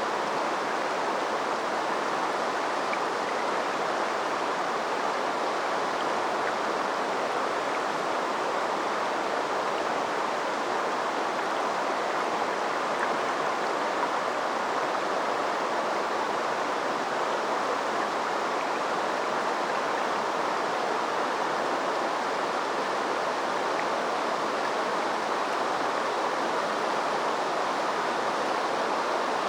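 River water flowing over a shallow stretch, a steady, even rush and babble with no change.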